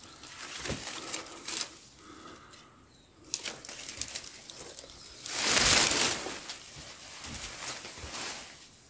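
Crunching and rustling of someone moving about on foot, with scattered clicks and a louder rustling burst lasting about a second a little after halfway.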